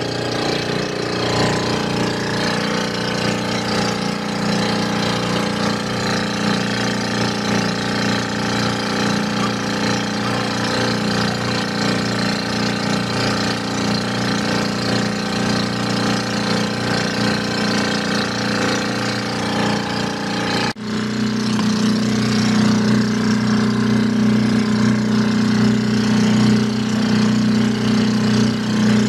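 Small fishing boat's engine running steadily. About twenty seconds in, the sound breaks off for an instant and comes back louder, with a stronger low hum.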